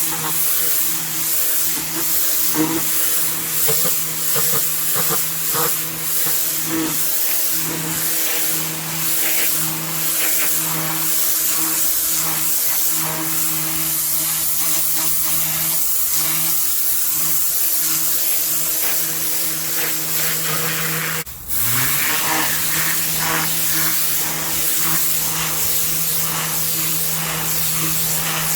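Kärcher K7 electric pressure washer running, its motor and pump humming steadily under the hiss of the water jet on patio paving. About three-quarters of the way through, the sound cuts out for a moment and the motor spins back up with a rising hum.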